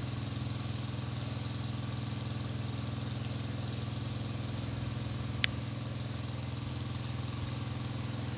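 Small engine-driven water pump running steadily at constant speed, pumping water out of the ditch. One sharp click about five and a half seconds in.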